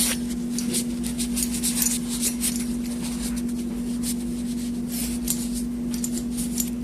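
Paper towel dampened with isopropyl alcohol being scrubbed back and forth over a CPU heat sink to wipe off old thermal paste, in quick irregular scratchy strokes. A steady low hum runs underneath.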